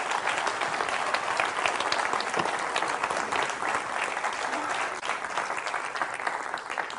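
Large audience applauding steadily, tapering off near the end.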